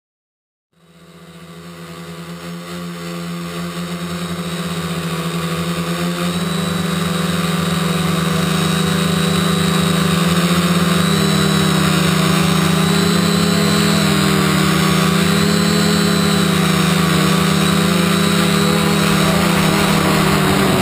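Quadcopter's four brushless motors (Exceed RC Rocket 2215 920kv) spinning APC 10x3.8 propellers, picked up by the GoPro mounted on the craft. A steady buzzing hum with a high whine, wavering slightly in pitch as the throttle changes. It starts about a second in and swells over the first several seconds, then holds loud.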